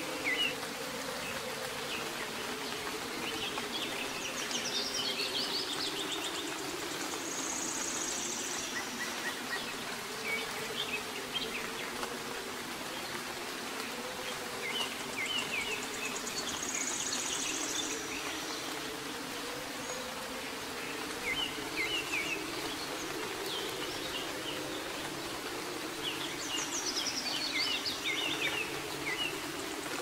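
Soft rain falling with songbirds chirping short phrases every few seconds and a brief high trill now and then. Under it runs a steady low buzz that wavers up and down in pitch, like an insect droning.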